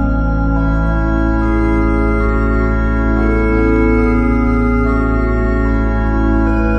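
Ambient background music: long, held organ-like chords that change slowly over a steady low drone.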